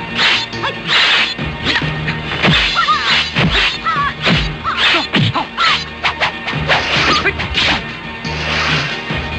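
Movie-style kung fu fight sound effects: a fast run of punch and kick impacts with whooshing swings, over music with low held notes.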